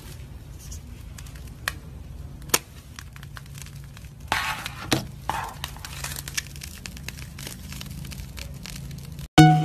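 Thick slime being cut with scissors and then squeezed and stretched, giving scattered crackling clicks and small pops.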